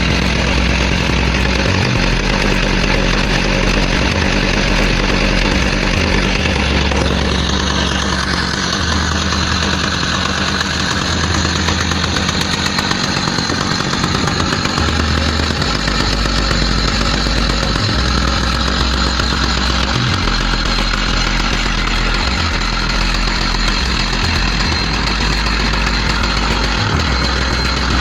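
Two-stroke engine of a gas-powered saw running steadily under way, with a continuous loud noisy sound and no big revving.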